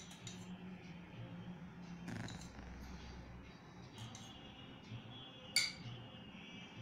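Faint clinks of a steel spoon against a steel tumbler as milk is spooned onto a flour-and-turmeric mix, the sharpest clink about five and a half seconds in, over a low steady hum.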